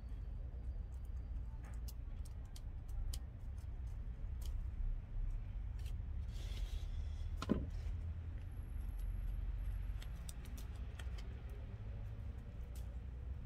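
Leaves and stems of a Dioscorea elephantipes vine being handled with gloved hands: scattered light clicks and a short rustle, with one sharper click about seven and a half seconds in, over a steady low rumble.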